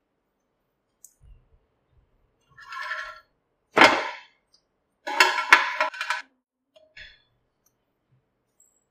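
A metal spatula scraping and clacking on a ridged nonstick grill pan as toasted sandwich bread is flipped over. There is a brief scrape, then one loud clack, then a cluster of clattering knocks a second or so later, and a light tap near the end.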